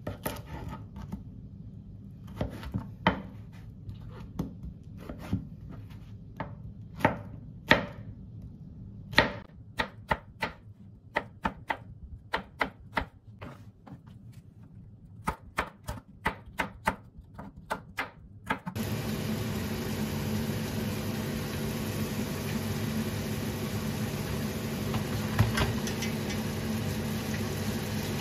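A knife chopping on a cutting board: irregular runs of sharp knocks, some quick and close together, with short pauses. About two-thirds of the way through it gives way abruptly to a steady hiss with a low hum underneath.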